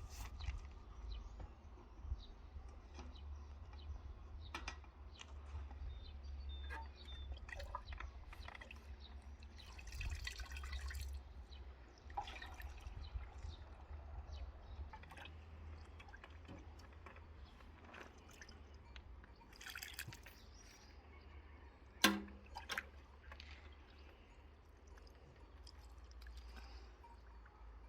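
Water dripping and trickling, with scattered small clicks and knocks and one sharp click about 22 seconds in, over a low steady hum.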